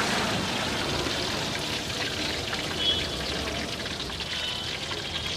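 Masala fish deep-frying in a large kadhai of hot oil, a steady sizzle with fine crackling, as the fried pieces are lifted out on a slotted skimmer and oil drips and trickles back into the pan.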